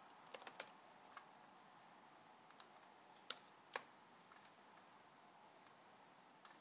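Faint, sparse computer keyboard keystrokes while code is being edited: a few quick taps near the start, then scattered single clicks.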